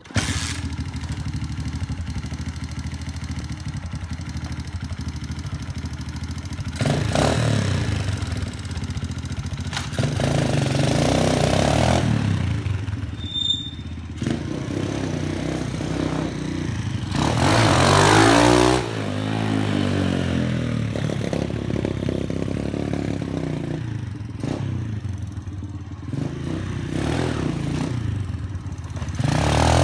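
Pit bike engine catching on a kick start, then running and revving while the bike is ridden, with several bursts of throttle and a rising-then-falling sweep in pitch as it passes about 18 seconds in.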